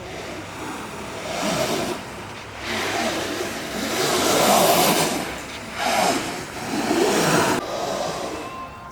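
Freeboard wheels rolling on pavement, rising and falling in a series of surges each about a second long.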